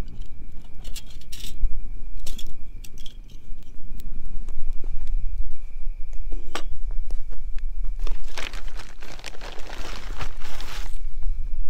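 Rustling and crinkling with scattered clicks over a steady low rumble, and a louder stretch of rustling from about eight to eleven seconds in.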